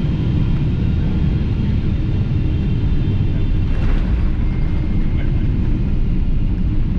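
Steady low rumble inside the cabin of a Boeing 777-200LR rolling on the ground after landing: engine and rolling noise heard through the fuselage.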